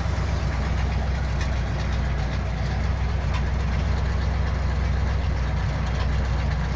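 1962 Chevrolet Impala's engine idling steadily just after starting.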